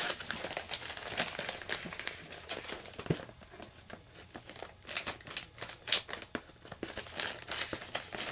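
Clear plastic comic book bag crinkling and rustling as it is handled while a comic is bagged and boarded, in many quick crackles, the sharpest about six seconds in.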